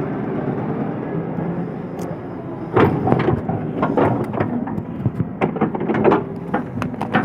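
Heavy earthmoving machine's diesel engine running steadily, joined about three seconds in by a rapid series of sharp cracks and snaps as vegetation and wood are broken up and crushed during site clearing.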